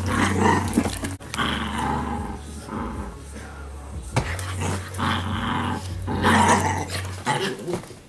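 Two Italian Greyhounds play-fighting, growling in a run of short, uneven bursts.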